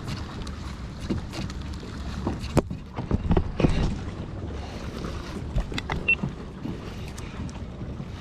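Wind buffeting the microphone as a steady low rumble, with scattered knocks and clicks from handling, several of them close together about three to four seconds in.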